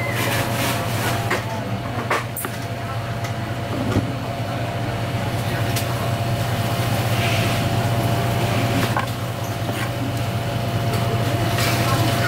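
Steady low machinery hum in a kitchen, with a few faint clicks of a knife cutting conch meat against a plastic cutting board, mostly in the first few seconds.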